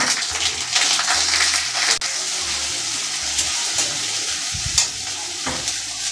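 Ginger, cumin and green chilli paste frying in oil in a steel kadai: a steady sizzle, with the scrape of a metal spatula stirring it and two knocks near the end.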